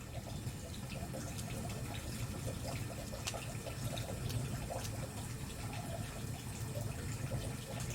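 Wood fire burning: a steady low rumble of flames with scattered sharp crackles and pops from the burning firewood.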